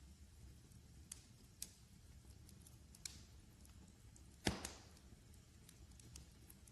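Wood fire crackling in a fireplace: scattered small pops and one louder crackle about two-thirds of the way in, over a low steady rumble.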